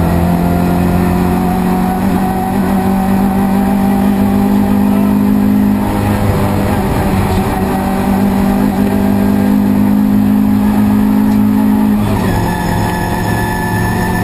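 Fiat 131 Group 2 rally car's four-cylinder engine running hard at high revs, its pitch climbing slowly, with a brief dip about six seconds in and a drop in revs about twelve seconds in.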